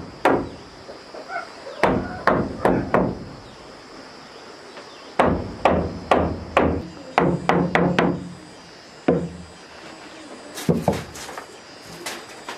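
Hammer blows on wood, coming in runs of several quick strikes with short pauses between, some leaving a brief low ring.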